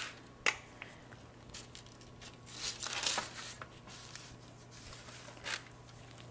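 Parchment paper on a baking sheet rustling faintly as pastry dough is unrolled onto it from a wooden rolling pin, with a sharp tap about half a second in and soft rustles around three seconds and again near the end.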